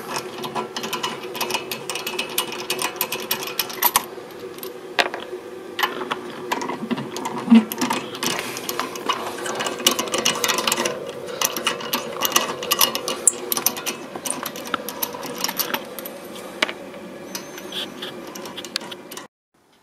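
Hand ratchet with a socket clicking rapidly, over and over, as the wheel nuts are spun off a car wheel. The clicking cuts off abruptly near the end.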